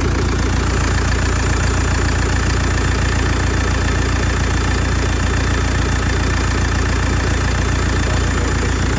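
Hyundai Terracan 2.9-litre turbo diesel engine idling steadily and evenly, warmed up after nearly twenty minutes of running; it runs smooth as silk.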